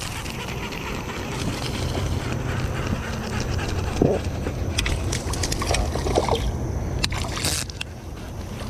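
Wind rumbling on the microphone of a camera aboard a kayak, with water lapping at the hull and scattered clicks and knocks from handling a baitcasting rod and reel.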